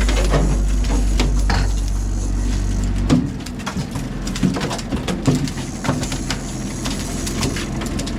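Boat under way with its engine running, water noise and scattered knocks and clicks; the deep rumble drops off about three seconds in.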